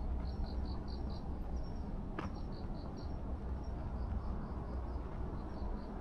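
Crickets chirping in short runs of three or four quick pulses, repeating every second or two over a steady low city hum. A single sharp click about two seconds in.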